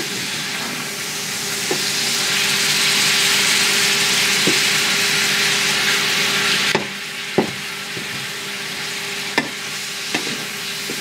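Chicken strips, onion and red bell pepper sizzling in a cast iron skillet while a wooden spatula stirs them, with several light knocks of the spatula against the pan. The sizzle grows louder, then drops off sharply a little past halfway.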